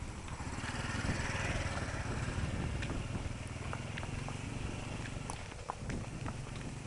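A horse blowing out through its nostrils in a fluttering breath, loudest from about half a second to two and a half seconds in, with scattered light knocks.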